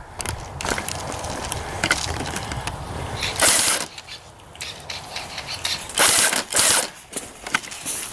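Scattered light clicks and knocks, with two short bursts of rustling noise, one about three and a half seconds in and one about six seconds in.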